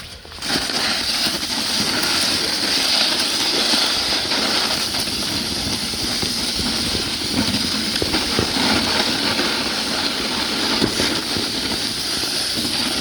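A snow shovel being pushed through heavy snow across pavement, giving a long, steady scraping rush. It starts suddenly about half a second in.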